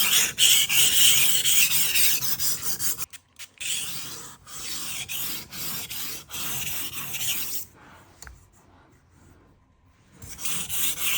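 A knife edge rasping back and forth on a diamond abrasive stone in a guided sharpener, grinding out micro-chips on a dull edge. The strokes are loud for the first few seconds and softer for a few more, then pause and come back loud near the end.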